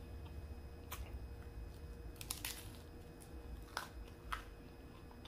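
A person chewing a mouthful of soft taco close to the microphone, with a handful of short, sharp wet mouth clicks and crunches over a faint steady hum.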